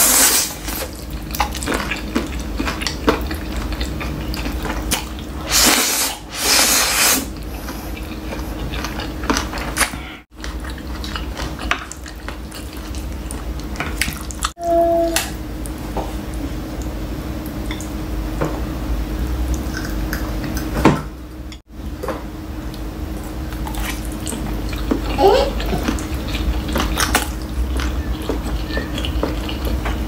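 Close-miked eating of saucy black bean noodles: wet slurping and chewing, with chopsticks and a spoon clinking against a glass bowl. The loudest slurps come around six to seven seconds in. A steady low hum runs underneath, and the sound breaks off briefly three times.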